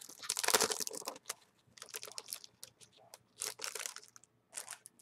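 Clear plastic bag crinkling in the hands as paper tags are slid out of it, in irregular bursts, the loudest about half a second in.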